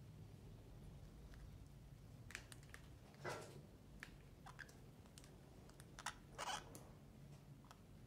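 Faint, scattered clicks and small crunches of orange-fronted parakeets' beaks nibbling bread and seed mix, over a low steady hum.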